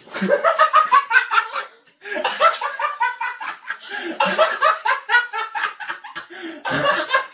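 A woman laughing hard in rapid bursts, with a brief break for breath about two seconds in.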